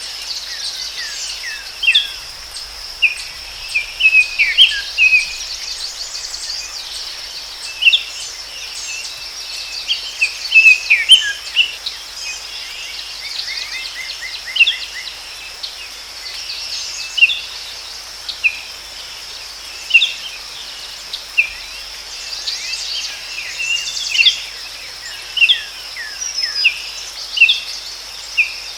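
Forest ambience: many birds giving short, sharp chirps and calls, with a quick trill of repeated notes about halfway through, over a steady high-pitched insect drone.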